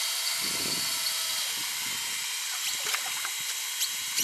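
Electric fishing reel motor winding in line with a steady high whine, cutting off suddenly about four seconds in; a few light clicks near the end.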